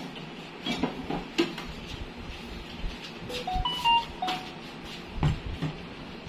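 Kitchen handling sounds: a string of light knocks and clinks of utensils and a glass bottle on a countertop, with a few brief ringing notes about three to four seconds in.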